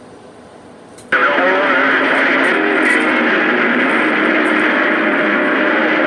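CB radio receiver: a faint hiss, then about a second in a strong skip signal opens the squelch and the speaker fills with loud static and garbled, overlapping voices with whistling tones, as several distant stations answer at once.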